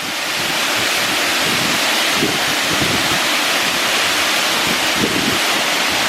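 Sea surf rushing steadily on a shore, with wind buffeting the microphone now and then.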